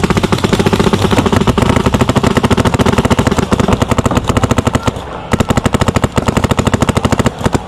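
Paintball marker firing a rapid, evenly spaced string of shots, about a dozen a second, with a brief break about five seconds in.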